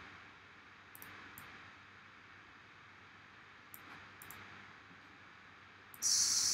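Faint computer mouse clicks, a few spaced irregularly, over a low steady hiss. Near the end comes a short, louder burst of hiss.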